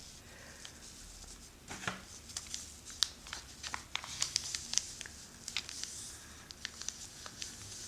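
A folded sheet of origami paper crinkling and rustling as it is pressed and flattened into a fold by hand: a scattered run of soft crackles and ticks.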